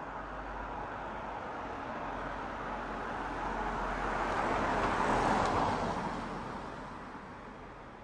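A road vehicle passing by: tyre and engine noise swelling to its loudest about five seconds in, then fading away.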